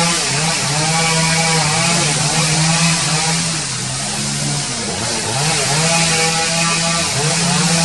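A small engine running steadily, its pitch dipping and rising a few times, over a constant high hiss.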